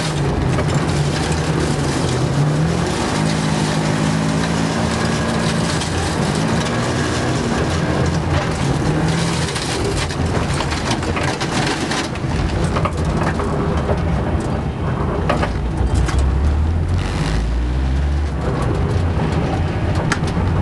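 Rally car's engine heard from inside the cabin, running at low, steady revs as the car rolls slowly over packed snow, with a constant crunching and crackle of tyres on snow and ice. In the second half the engine note drops to a lower rumble near idle, with scattered clicks and knocks.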